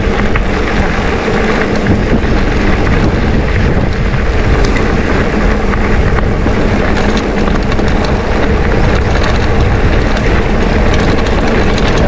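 Steady wind rumble on a handlebar-mounted camera's microphone as a mountain bike rolls over a dirt-and-gravel road, with light ticks of grit under the tyres.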